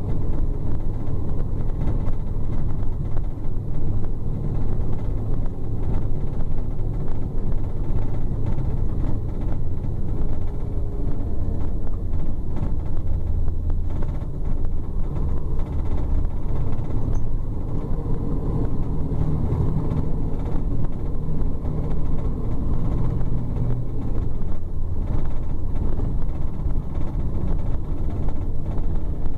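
Steady low rumble of a Scania K410 double-decker coach on the move, heard from on board: its rear-mounted six-cylinder diesel engine running at cruise under road and tyre noise, with a slight swell past the middle.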